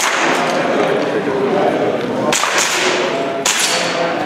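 Airsoft pistol firing a few sharp shots: two in quick succession about two seconds in and another about a second later, over a steady background din.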